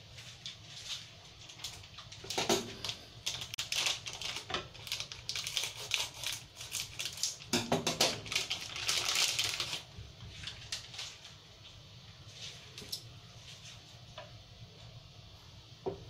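Plastic food packaging crinkling and crackling as it is handled and opened, a dense run of crisp crackles that stops about ten seconds in, followed by a few light clicks.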